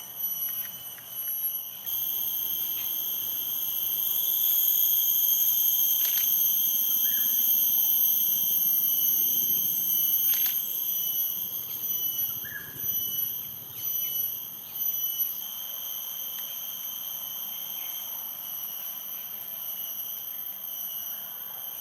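Steady, high-pitched shrill drone of insects, swelling louder a few seconds in and easing off about halfway through.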